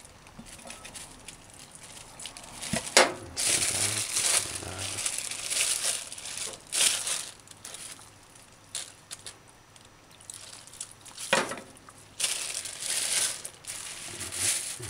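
Thin plastic bag crinkling in irregular bursts as slices of raw fish are handled and packed into it, with a sharp knock about three seconds in and another about eleven seconds in.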